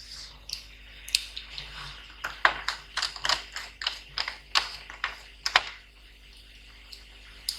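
Irregular light clicks and taps, several a second for a few seconds, from hands working on a laptop and its small parts.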